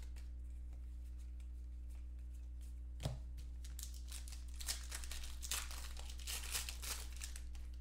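Trading-card pack wrappers being torn open and crinkled by hand, in scattered bursts that cluster in the second half, with one sharp knock about three seconds in. A steady low electrical hum runs underneath.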